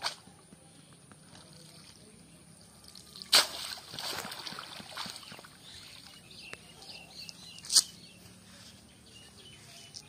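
Cast net being hauled out of a pond, with water sloshing and dripping off the mesh. Two sudden sharp noises about four seconds apart are the loudest events; the first is followed by a couple of seconds of splashing.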